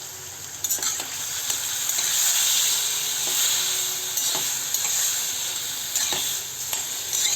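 Boiled raw jackfruit pieces sizzling in hot mustard oil in a kadai while being stirred, with the spatula scraping and knocking against the pan now and then. The sizzle grows louder about a second in.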